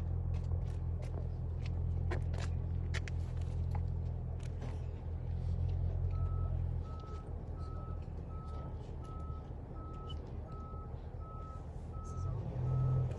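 Bus engine running with a low hum that eases off about halfway through, when a reversing alarm starts beeping steadily at one pitch, about three beeps a second.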